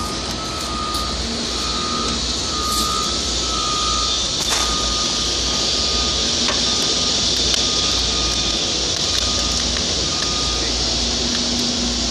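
Backup alarm on heavy machinery beeping in a steady repeating pattern, over the steady rumble and hiss of running equipment.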